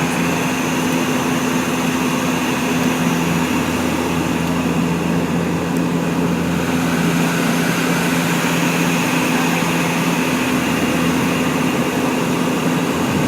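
Steady drone of an airliner cabin in flight: constant engine and air-flow noise with a steady low hum.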